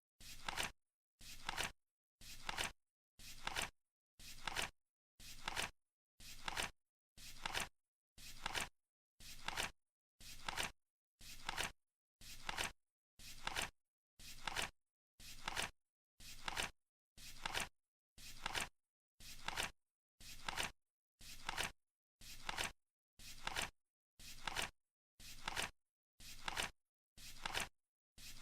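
Flip clock countdown timer flipping its seconds card, a short flapping click about once a second in a steady rhythm.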